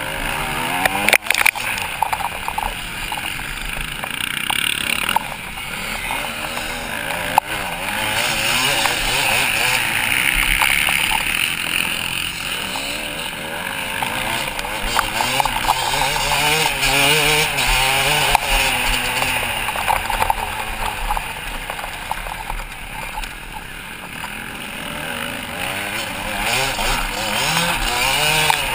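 Motocross bike engine heard close up from the rider's helmet camera, revving up and down continuously as the throttle opens and closes through the corners and straights. A couple of sharp knocks come through early on and about seven seconds in.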